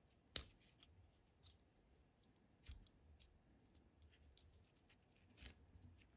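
Metal watch-strap buckle and keeper clicking as a fabric watch strap is worked through them, with a soft rub of the strap. There is one sharp click about half a second in, followed by a few lighter clicks spread through the rest.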